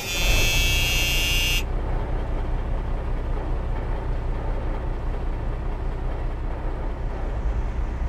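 A loud, steady horn-like blast of many tones that cuts off suddenly about a second and a half in, followed by a steady low rumble.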